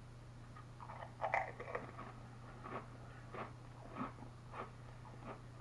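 A person biting into a Lay's STAX Flamin' Hot stacked potato crisp and chewing it: a cluster of crunches about a second in, then softer crunches at a steady chewing pace.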